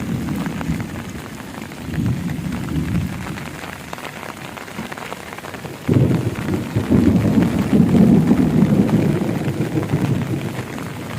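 Strong storm wind gusting against the microphone in a low, rough rumble. It turns suddenly louder about six seconds in.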